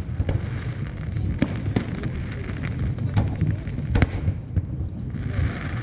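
Fireworks display: a rapid run of aerial shell bursts, sharp cracks and booms about two a second, the loudest about four seconds in, over a continuous low rumble.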